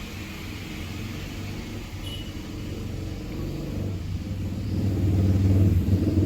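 Sekai HFN 1060 electric fan running, its airflow buffeting the microphone as a low rumble that grows louder over the last couple of seconds.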